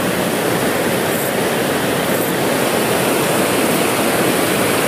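River rapids rushing over rocks, a steady, unbroken rush of fast water.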